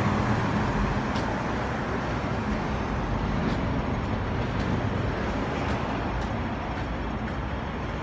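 Steady drone of an air-conditioning unit running, slowly fading, with faint sharp clicks here and there.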